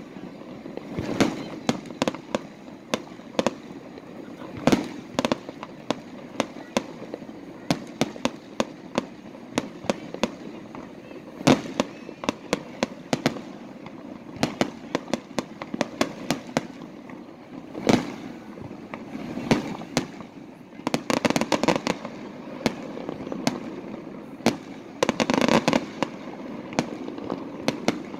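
Aerial fireworks going off: loud shell bursts every second or so, with two dense runs of rapid crackling in the last third.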